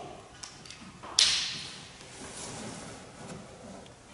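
A single sharp knock against the metal truck toolbox about a second in, ringing out briefly, with a few small clicks of handling before it.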